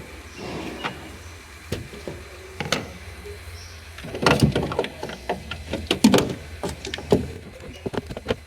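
Irregular clicks, knocks and rattles of hand work on parts, over a low steady hum, with the loudest knocks about four and six seconds in.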